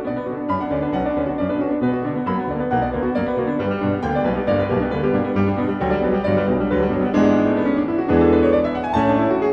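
Background piano music, a steady run of notes, with a rising run of notes near the end.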